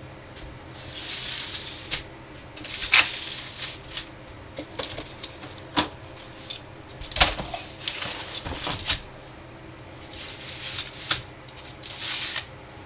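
Foil-lined aluminium pans crinkling and rustling as they are handled and slid about on a stainless steel counter, with several sharp knocks and clicks as they are set down. A steady low hum runs underneath.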